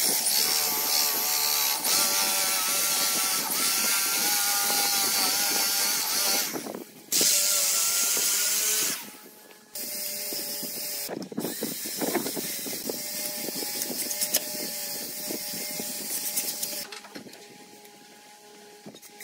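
Corded electric drill with a wide Forstner-type bit boring a concealed-hinge cup hole into a pine panel. The motor whines steadily under load for about six seconds, stops briefly, and runs again for about two seconds. Then a quieter, steady running tone follows until near the end.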